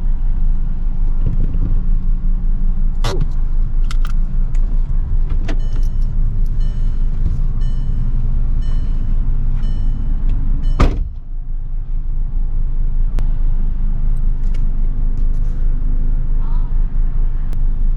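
Mk6 Volkswagen GTI's 2.0-litre turbocharged four-cylinder engine running under load during an autocross run, punctuated by sharp knocks. A run of faint rapid high ticks comes midway. The loudest knock, about two-thirds of the way in, is followed by the engine note dropping briefly.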